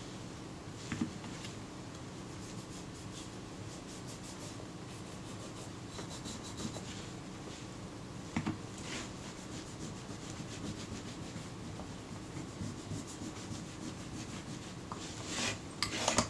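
Soft cloth rubbing as black leather-renovating polish is taken up from a small tin, with faint handling taps. A few louder taps and scrapes come near the end.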